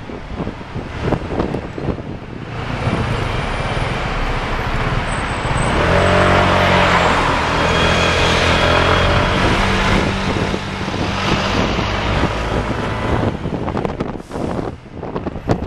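Road traffic with wind buffeting the microphone; from about six seconds in, the low diesel engine rumble of a double-decker bus alongside grows loud and holds for several seconds before fading.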